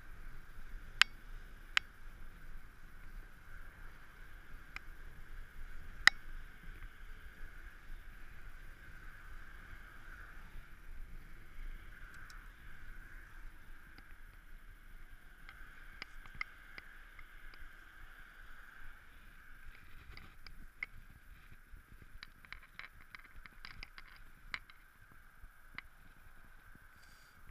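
Mountain bike rolling along a paved path: steady muffled tyre and ride noise with a few sharp rattling clicks, the loudest about 1, 2 and 6 seconds in. A run of small clicks and taps comes in the last several seconds.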